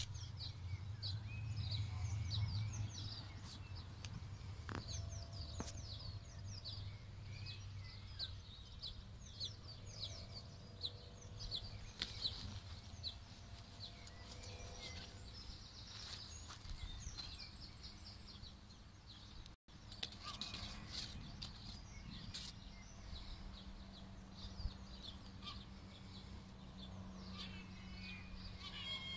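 Small birds chirping and singing, many short high calls overlapping throughout, with a low rumble under them for the first several seconds.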